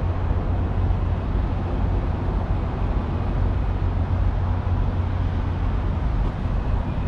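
Steady low rumble of a heavy-haul semi truck's diesel engine running, with road noise.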